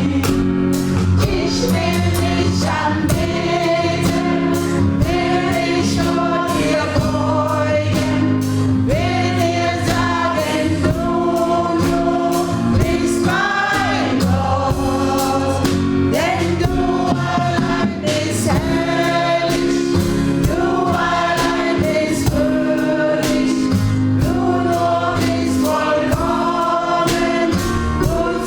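Gospel choir singing live with a band, over a steady bass line and a regular drum beat.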